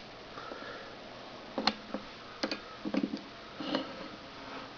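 A few sharp clicks and small knocks from handling a metal novelty lighter shaped like an old-fashioned telephone.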